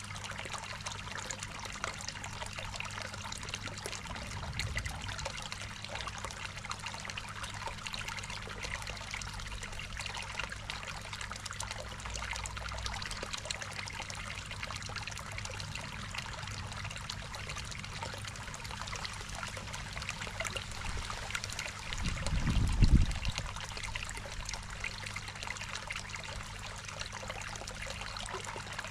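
Water trickling and splashing steadily into a garden koi pond, over a steady low hum. About three quarters of the way through comes a brief low rumble, the loudest moment.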